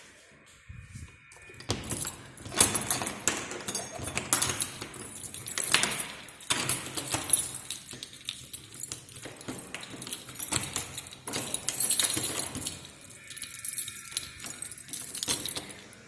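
Irregular clattering and clinking of small hard objects being handled, with rustling, running on and off from about two seconds in.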